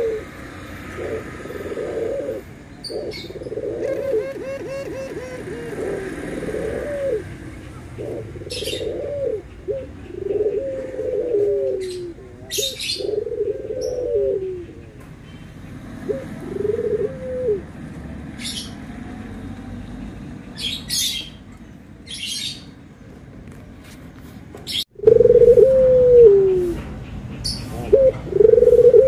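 Puter (Barbary dove) cooing over and over, a run of low rolling coos, many sliding down in pitch at the end. Short high chirps from small birds come in between, and about 25 seconds in the cooing suddenly becomes much louder.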